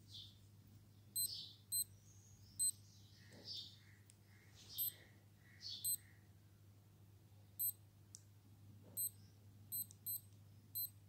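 Skylark digital sports watch giving short high beeps as its buttons are pressed to cycle through modes, about ten at uneven intervals, with soft clicks of handling between them.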